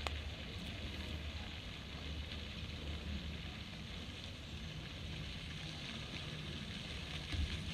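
Wind rumbling on the microphone over a steady, even hiss of open-air ambience, with a few low thumps near the end.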